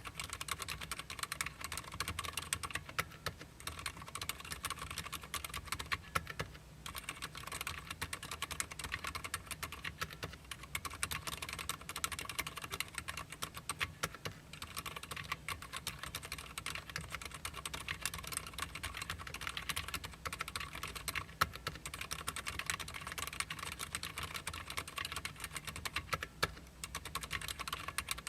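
Fast, continuous typing on a Cherry MX Board 3.0S TKL RGB mechanical keyboard with Cherry MX Silent Red switches. The keystrokes come in a dense stream of clicks, broken by a few brief pauses.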